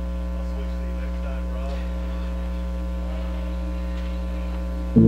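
Steady electrical mains hum: a low buzz with a ladder of higher overtones, holding unchanged throughout.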